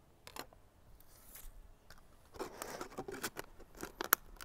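Scissors snipping thin plastic-bottle plastic, a few short cuts to trim the rim of the bottle-top funnel. From about halfway in, plastic crackling and clicking as the trimmed funnel is handled and fitted into the bottle.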